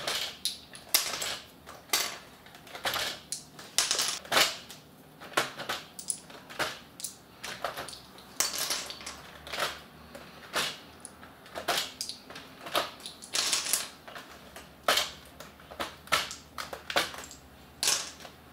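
Plastic knob and fader caps being pulled off a DJ controller one after another and dropped onto a pile: a string of irregular sharp clicks and light plastic clatters, roughly one or two a second.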